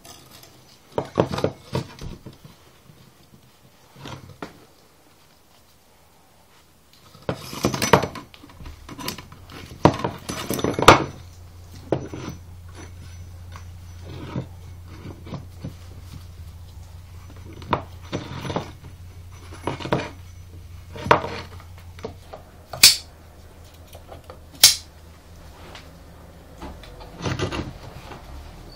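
Scattered metallic clinks, knocks and scrapes from handling a motorcycle exhaust baffle and its metal parts while fitting the baffle into the silencer can. They come in short clusters with pauses, and two sharp high clicks come near the end.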